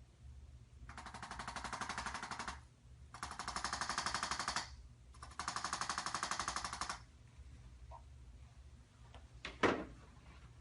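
Handheld electric chiropractic adjusting instrument firing three bursts of rapid pulses, each about a second and a half long and growing louder. A single sharp knock follows near the end.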